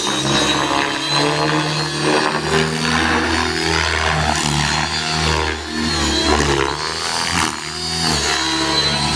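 Align T-Rex 600E electric RC helicopter flying aerobatics: the whir of its rotor blades with a high motor whine, both rising and falling in pitch as it manoeuvres.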